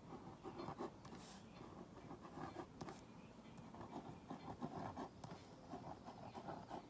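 Ballpoint pen scratching faintly on a brown card template in many short strokes as lines are drawn and scribbled on it.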